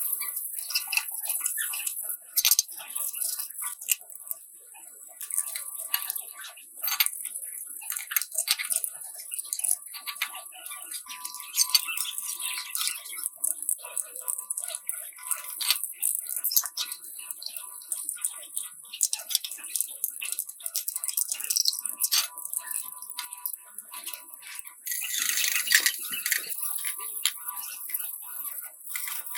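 Irregular clicking, clinking and scraping of hand tools on metal parts, over a steady high hiss.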